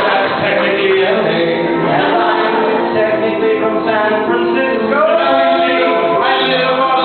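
Several voices singing a song together in harmony, with piano accompaniment.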